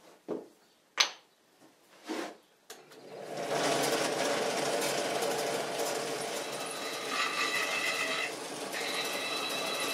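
A few knocks of things set down on a wooden workbench, then from about three seconds in a handheld electric rotary tool runs steadily, milling a wooden control-stick grip half. A higher whine comes in twice near the end.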